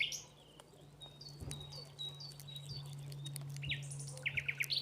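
Small birds singing: a run of short, evenly repeated high notes through the middle, then quick rapid chirps near the end, over a steady low hum.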